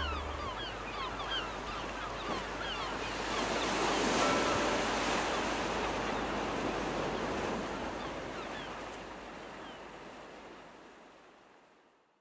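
Ocean surf washing steadily, with many short, high calls falling in pitch over it, all fading out to nothing near the end. The last low note of the song dies away in the first half second.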